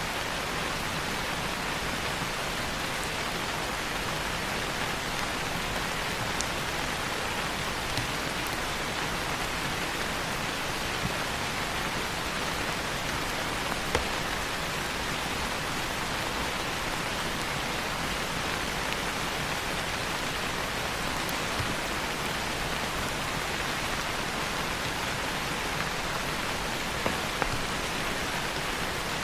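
Steady rain falling, an even hiss, with a few sharp crackles from a wood fire in a fireplace scattered through it.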